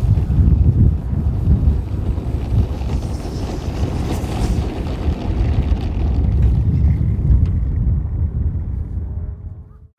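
Wind buffeting the microphone, a loud low rumble without any clear tone, fading out near the end.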